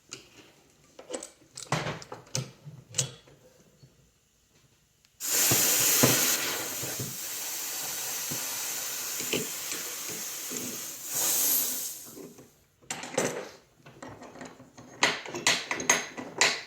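Pressurised CO2 hissing out for about seven seconds, starting suddenly about five seconds in, as the SodaStream quick connect filling rig is vented so the canister can be removed. Clicks and metallic clatter of the fittings being handled come before and after the hiss.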